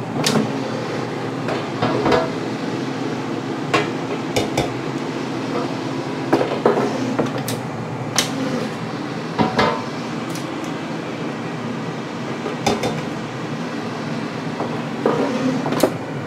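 Ninja dual-basket air fryer's fan running steadily in its cool-down mode after preheating, with scattered sharp clinks and knocks as the metal basket drawers and cake tins are handled.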